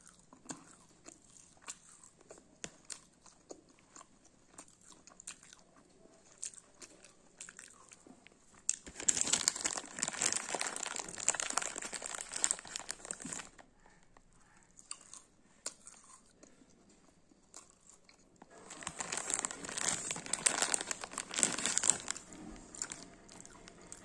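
Soft, wet clicks of chewing a sugar-coated red candy, then a plastic candy bag crinkled loudly for about four seconds, quieter clicks, and a second spell of crinkling lasting about three seconds.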